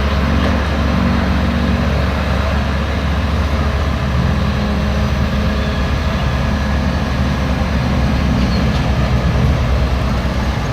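Hyundai R480 excavator's diesel engine running steadily, a loud low drone.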